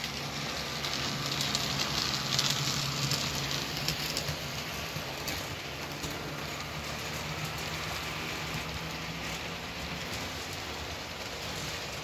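Model train running past close by: a low motor hum with the wheels rolling and clicking along the track. It is loudest a couple of seconds in, and the hum fades as the train moves away.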